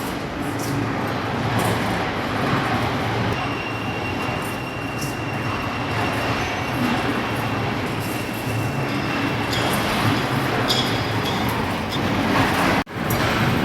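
Gold trommel running: a steady rumble of gravel tumbling in the rotating drum, with scattered clicks of stones. The sound cuts out for a moment near the end.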